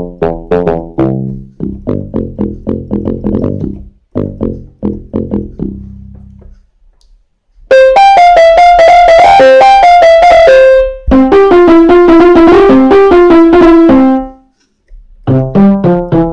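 Kawai FS660 portable electronic keyboard playing a melody on its built-in preset voices. The first part has quickly fading struck-sounding notes; after a brief silence, a different voice plays held notes at an even level in two phrases, and quick fading notes start again near the end.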